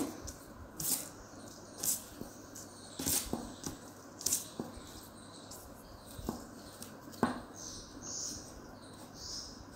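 Jute twine being wound by hand around a wire hoop: faint scratchy rustles, the sharper ones about once a second, as each turn is pulled through and tightened against the wire.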